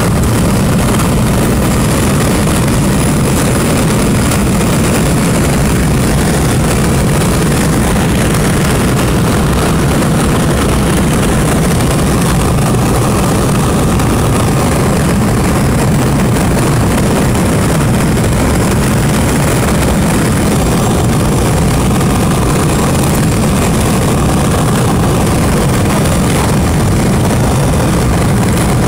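Steady road and engine noise of a moving car heard inside its cabin: a constant low rumble from tyres and engine.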